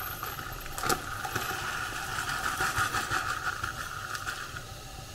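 Dry bulgur wheat poured from a plastic bag into a drinking glass: a steady grainy rattle of the grains with the plastic bag crinkling and a few small clicks, over a steady hiss from the kitchen.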